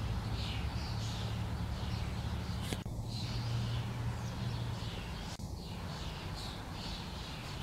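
Birds chirping faintly over a steady low hum that fades about five seconds in, with two faint clicks.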